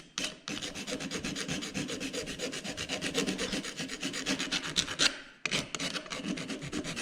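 Hand file rasping in quick back-and-forth strokes on the freshly cut end of a motorcycle control lever, smoothing off the sharp edge where the ball end was cut off. There is a short pause about five seconds in.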